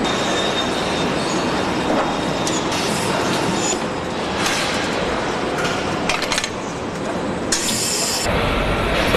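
Steady mechanical din of a car-body assembly line, with several short bursts of hissing from about two and a half seconds in.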